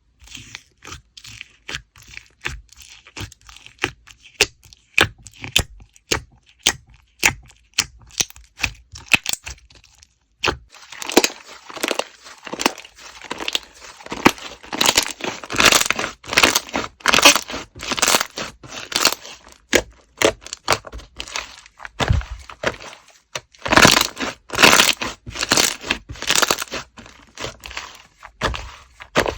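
Slime being pressed and squeezed, giving sharp crackling and popping clicks, spaced out at first and much denser from about ten seconds in.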